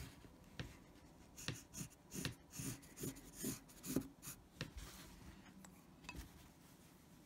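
Pencil drawing lines on a sheet of felt: a run of short, faint scratching strokes, about a dozen over three seconds, then the strokes stop.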